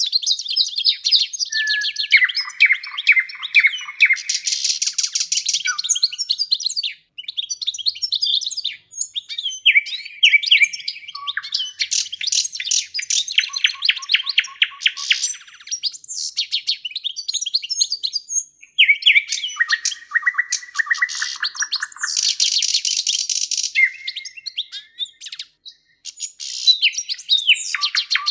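A songbird singing continuously in long, varied high-pitched phrases of rapid trills and buzzy rolls, with a similar run of phrases coming round again about two-thirds of the way through.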